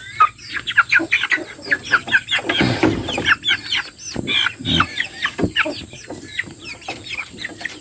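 Chickens clucking and calling: many short, quick calls, each sliding downward in pitch.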